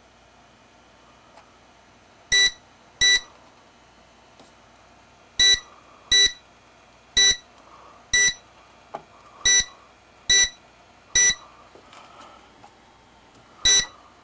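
Fire alarm control panel keypad beeping: ten short, identical electronic beeps at uneven intervals, each acknowledging a button press while the panel is being programmed.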